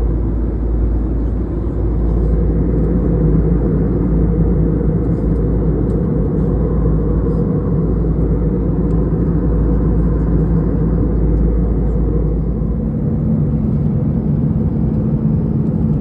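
Steady cabin noise of a jet airliner in cruise, its engines and rushing air heard from a passenger seat as a deep, even rumble. About thirteen seconds in the deepest part of the rumble drops away and a steady hum comes through.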